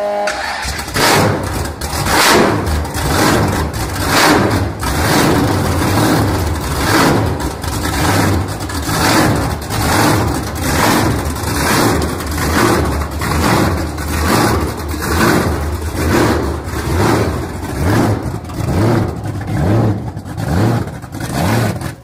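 Supercharged V8 with a roots-type blower on top, running loud and rough, its pitch and loudness swelling and dropping about once a second in repeated rev blips.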